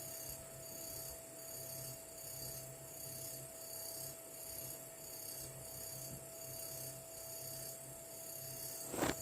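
Faint steady background hum with a thin steady whine and a soft pulsing about twice a second, then a sharp click near the end.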